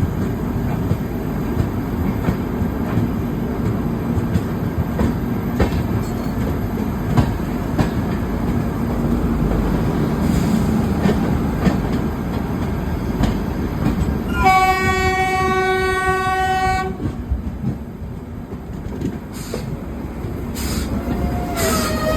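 Indian express trains running past: a steady rumble of coaches with repeated clicks of wheels over rail joints. About two-thirds of the way through, a locomotive air horn sounds one blast of about two seconds. Near the end, a wheel squeal starts.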